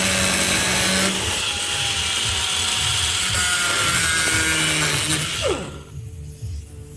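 Power tool cutting into a wooden door panel with a loud, steady noise. The motor shuts off about five and a half seconds in and winds down with a falling whine, leaving faint background music.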